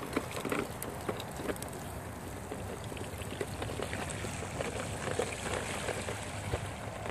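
Small tricycle wheels rolling through a shallow puddle, the water splashing and trickling, over a steady hiss with scattered small clicks.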